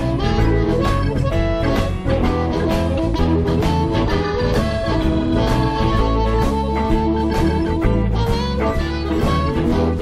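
Live blues band playing an instrumental passage of the song.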